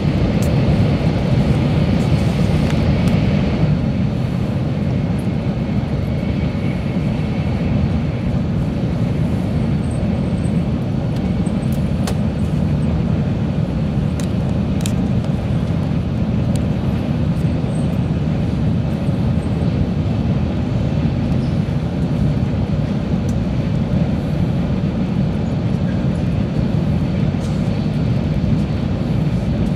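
Running noise inside a JR West 700 series Rail Star Shinkansen car at speed: a steady low rumble of wheels, track and air. It is harsher for the first few seconds while the train is in a tunnel, then eases as it comes out into the open, with a few faint ticks later on.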